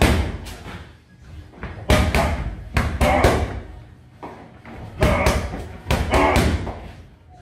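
Boxing gloves striking focus mitts in quick combinations: bursts of sharp slaps, a few at a time, with short pauses between.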